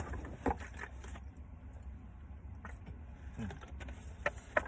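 Scattered light clicks and rattles of small packaged items being handled during an unboxing, with a couple of sharper clicks near the end over a low steady hum.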